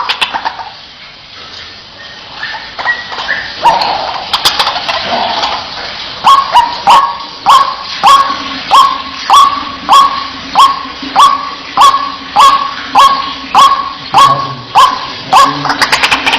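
White-breasted waterhen (ruak-ruak) calling: a loud repeated 'wak' note, scattered at first, then settling about six seconds in into a steady series of nearly two calls a second.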